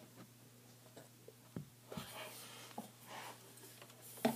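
Quiet handling of a pile of clothes: a few faint rustles and soft knocks as the laundry is pulled away from the wall, over a faint steady hum.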